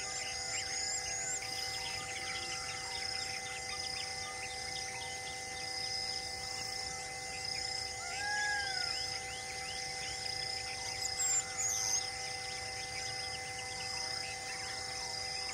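Birds and insects calling: many quick high chirps and a high insect-like trill pulsing in short repeated beats, with a louder arching call about eight seconds in and sharp high calls near eleven seconds, over steady held tones.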